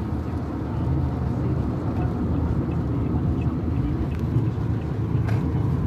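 Steady low rumble of a car driving, heard from inside the cabin, with a brief faint tick about five seconds in.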